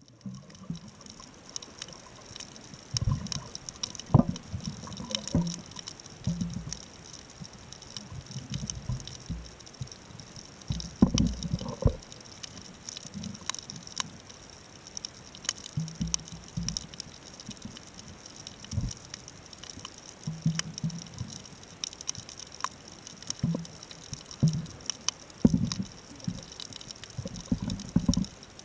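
Underwater sound picked up by a camera in its housing on a coral reef: a constant crackle of fine clicks, with low gurgling, sloshing water sounds every second or two.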